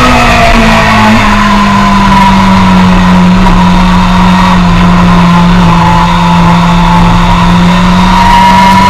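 Suzuki sport bike's engine, loud at close range, running in second gear at nearly steady revs while the bike leans through a corner. The pitch steps up briefly about a second in and climbs slightly near the end.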